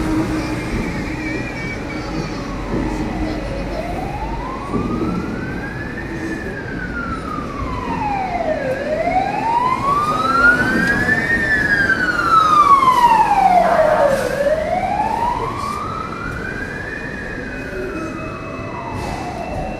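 An emergency vehicle's siren wailing, sliding slowly up and down about every five seconds and loudest in the middle. Under it runs the low rumble of the tram rolling along its rails.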